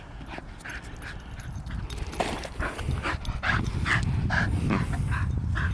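Cattle dog whimpering in a series of short, high yips, about two a second: excited whining while it waits for the frisbee to be thrown again.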